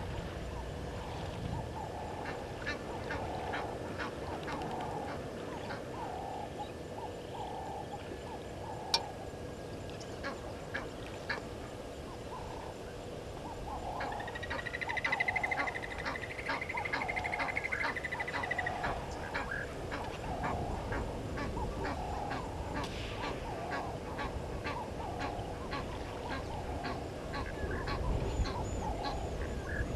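Animal calls at a waterhole: short calls repeating about once a second throughout, a high rapid trill for about five seconds in the middle, and scattered sharp clicks.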